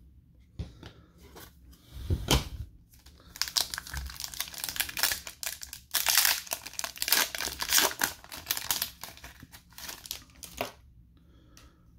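Foil wrapper of a hockey card pack crinkling and tearing as it is ripped open by hand: a run of crackles lasting several seconds, after a short knock about two seconds in.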